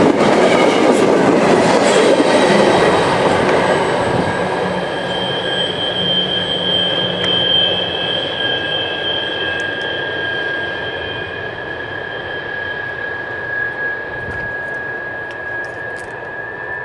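Freight train cars rolling past on the rails, their wheels giving a high, steady squeal. The rumble fades steadily as the train moves away.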